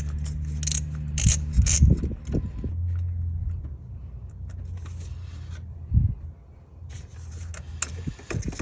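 Ratchet wrench with a 12mm socket clicking, and small metal parts clinking, as the nut on the starter's electrical terminal is loosened and taken off. The clicks come in quick runs in the first couple of seconds and again near the end, over a low steady hum at first.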